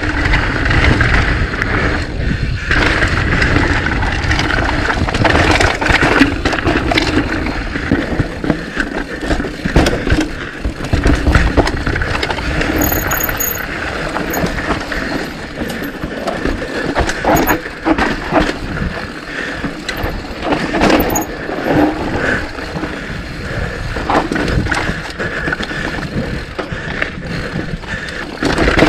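Mountain bike ridden along a dirt trail: steady tyre noise, with the bike's frame and chain rattling and clattering over bumps many times.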